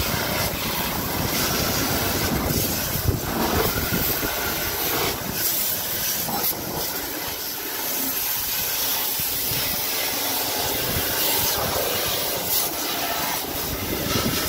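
Water jet from a pressure-washer hose spraying a tyre and the inside of the wheel arch: a steady hiss and spatter, heavier in the first half.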